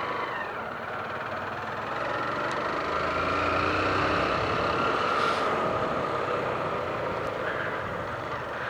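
A 150 cc motorcycle engine running while riding, picking up revs about two seconds in and easing off again after the middle, with wind rushing over the microphone.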